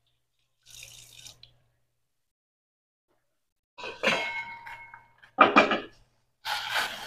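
A brief splash of tap water over washed sawi greens, then clanks and a short metallic ring from a stainless steel pot lid being lifted and put down, followed by the hiss of water at a rolling boil.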